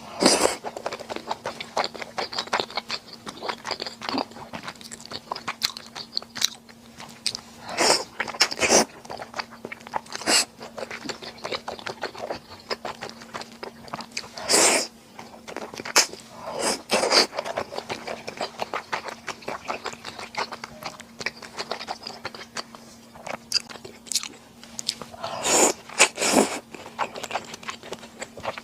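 Close-miked mouth sounds of a person chewing and eating Chinese glass noodles and rice balls: dense small clicks, with louder bursts about nine times across the stretch.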